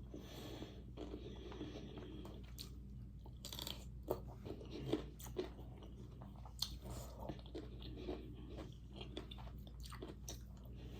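A person chewing and biting food, with a scattering of short, sharp crunches and clicks.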